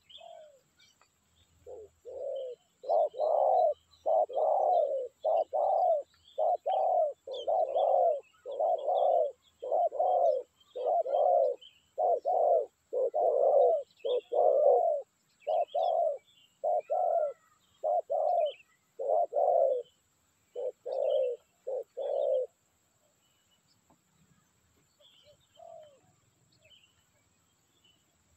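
Spotted dove cooing: a long run of deep, repeated coos lasting about twenty seconds, then stopping. Small birds chirp faintly in the background.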